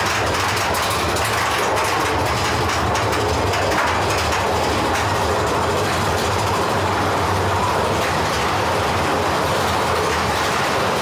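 Big Thunder Mountain Railroad's mine-train roller coaster running along its track, a steady, loud mechanical noise from the train.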